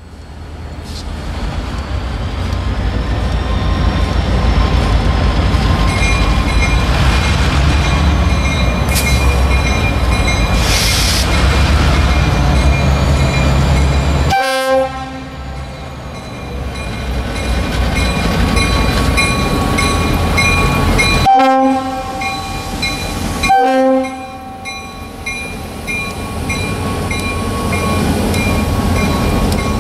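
Diesel-electric freight locomotives passing close by, their engines rumbling heavily while the lead unit's air horn sounds repeatedly for a grade crossing. A crossing bell dings steadily underneath.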